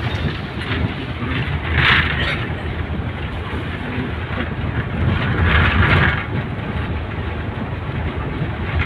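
Steady engine and road noise heard from inside a moving vehicle, with two louder rushes of hissing noise, about two seconds in and again around six seconds.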